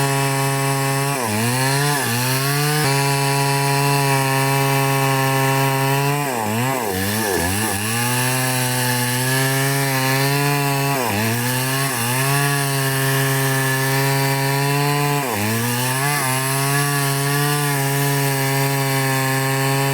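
Small two-stroke chainsaw running at high speed while cutting wood; its pitch sags and recovers several times as the chain bites into the wood.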